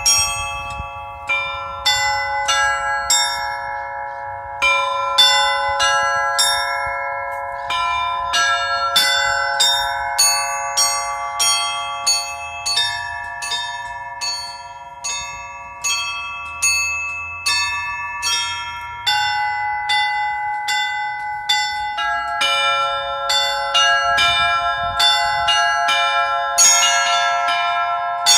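Russian Orthodox church bells, a set of small bells tuned to a pentatonic scale, struck one after another in a melody at about two strikes a second. Each note rings on under the next, and the strikes come thicker near the end.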